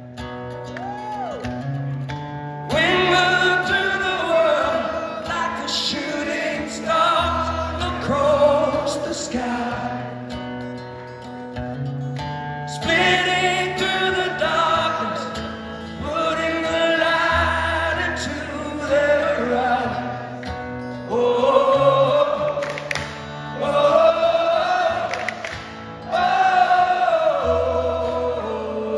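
A live rock band performing a slow song, heard from the audience. A male lead singer holds long sung lines over acoustic guitar and bass notes that change every few seconds.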